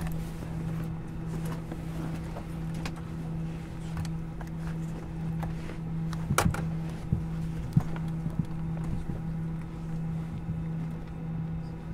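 A steady low mechanical hum with scattered short clicks and knocks, a small cluster of them about six seconds in.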